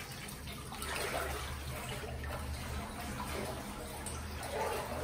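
Pool water sloshing and splashing around a person wading through it, with water running and dripping off a dog lifted out of the water.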